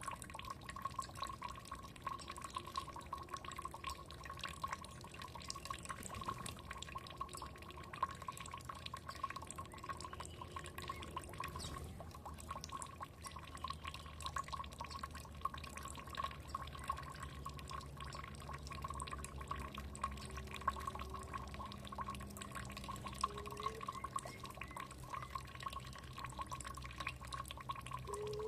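Water trickling and dripping: a dense, continuous patter of small drips and splashes.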